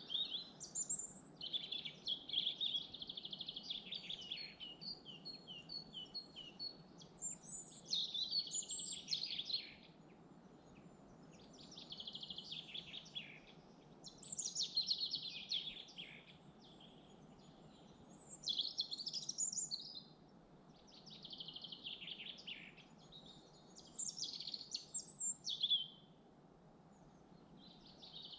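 Songbird singing short, varied, high phrases, one every two to three seconds, over a faint steady background hiss.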